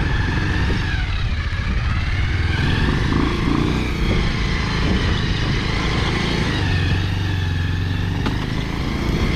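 Motorcycle engine running steadily while riding, its note drifting slightly up and down.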